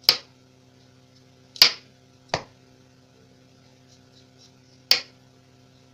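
Kitchen knife peeling the skin off a raw taro corm in downward strokes: four short, sharp cuts, two of them close together in the middle.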